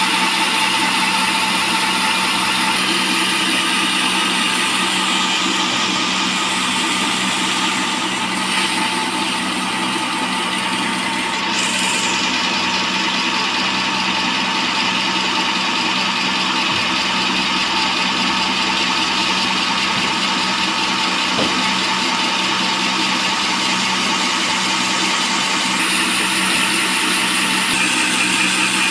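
Band sawmill running steadily, its blade sawing through a long teak log, with a constant motor hum and sawing noise.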